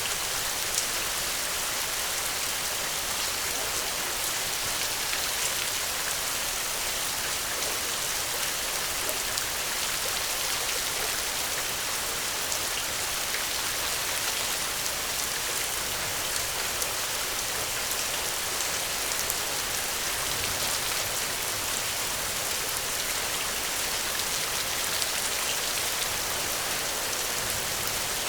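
Steady rainfall: an even hiss of rain falling on surfaces, with scattered individual drops ticking.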